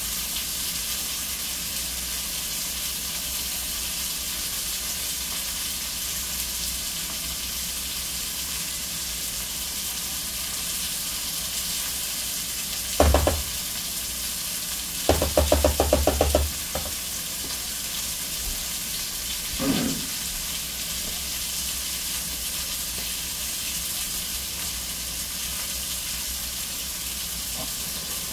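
Beef liver frying in oil in a cast-iron skillet: a steady sizzle. About halfway through, a utensil knocks and then rattles quickly against the pan for a second or two.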